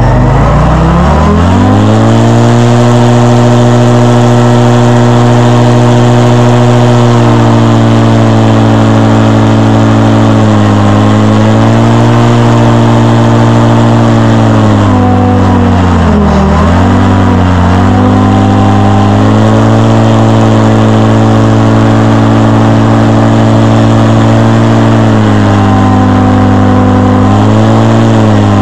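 Airboat's stock Yamaha Apex four-cylinder four-stroke engine and Whirlwind Excalibur propeller running loud. It climbs in pitch over the first couple of seconds, then holds a steady high speed, with brief throttle dips about 10 and 16 seconds in and small rises near the end.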